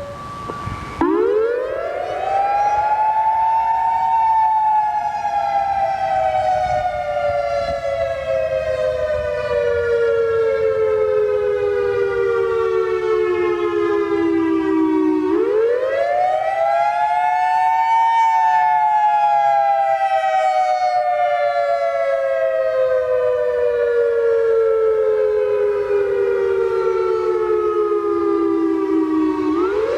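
Federal Signal EOWS 612 fire siren sounding its wail on a test. After a brief steady tone in the first second, its pitch rises over about three seconds and then slowly falls for about eleven. It rises quickly again about fifteen seconds in, falls once more, and starts a third rise near the end.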